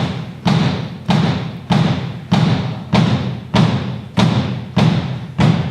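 Bass drum (kick drum) struck on its own about ten times at a steady pace, a little under two hits a second, for a sound check.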